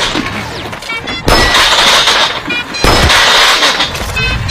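Loud background music with a strong hit about every one and a half seconds.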